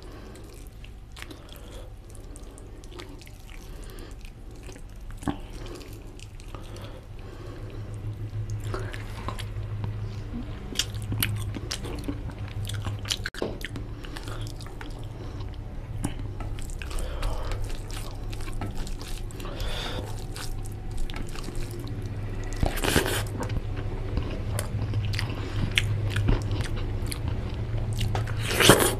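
Close-miked chewing and mouth sounds of a person eating chicken curry and fried rice by hand, with many small clicks and the sound of fingers mixing rice into the gravy on a steel plate. Two louder bursts stand out, one about two-thirds of the way through and one just before the end as a handful goes into the mouth.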